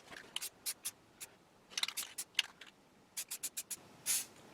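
Aerosol spray-paint can giving short touch-up bursts: a quick series of brief hisses in three clusters, with one slightly longer hiss near the end.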